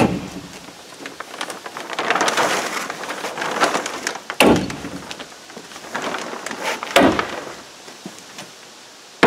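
Hammer stapler slammed against plastic sheeting over OSB plywood, driving staples: sharp strikes every few seconds, at the start, about four and a half seconds in and about seven seconds in. Between the strikes the plastic sheeting rustles and crinkles as it is pulled taut.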